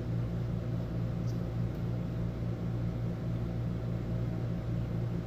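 Steady low mechanical hum running without change.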